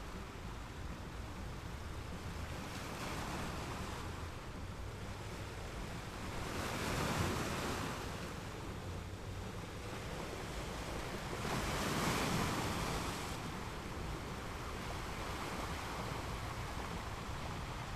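Ocean waves breaking and washing onto the shore, a steady surf with a low rumble underneath. Two waves swell up louder, one about a third of the way through and one about two-thirds through.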